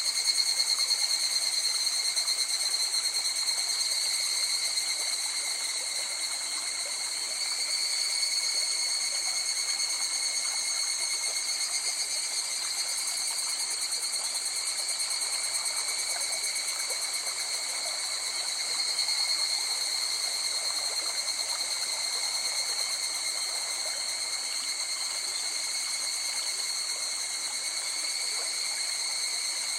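River water flowing, under a continuous chorus of insects trilling at several high pitches.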